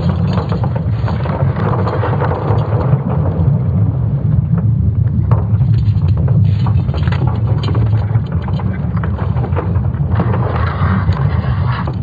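Sonification of Earth's magnetic field, built from ESA Swarm satellite magnetic signals: a deep, steady rumble overlaid with crackling and scattered clicks. The crackle grows brighter about ten seconds in.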